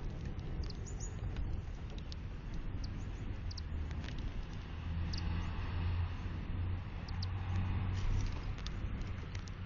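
Small birds at a window feeder: scattered short, high ticks and taps over a steady low hum.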